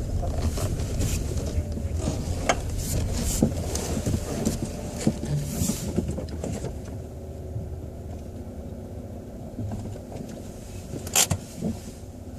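2006 Chevrolet Cobalt's steering column clanking and clicking at irregular moments as the wheel is turned, over the engine's steady low hum. The sharpest click comes near the end. The noise comes from a binding intermediate steering shaft.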